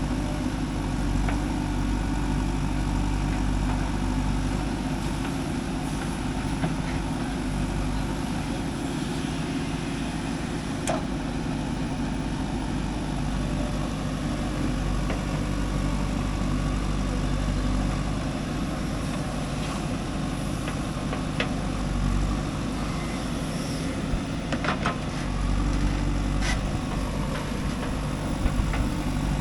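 Heavy diesel machinery engine running at a steady speed, with a few sharp knocks scattered through: a JCB 3DX backhoe loader at work loading mud into a dump truck.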